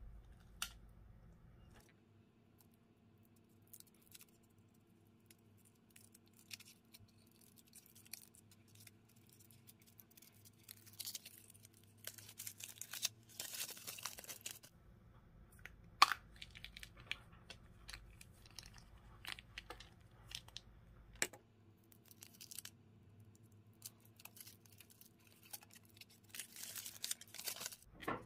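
Pink foil wrapper of a chocolate surprise egg crinkling and tearing as it is peeled off by hand, with scattered sharp clicks and snaps of chocolate shell and a plastic capsule; near the end the chocolate egg shell crunches as it is squeezed and cracked.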